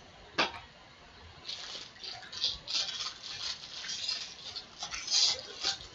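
Foil wrapper of a 2017 Topps Series 1 baseball card pack crinkling and tearing as it is ripped open by hand, a dense run of crackles. A sharp knock comes about half a second in.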